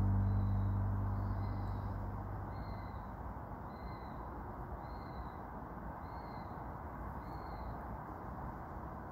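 A bird repeats a short, high call about once a second, seven times in all, over a steady low hiss. Background music fades out in the first two seconds.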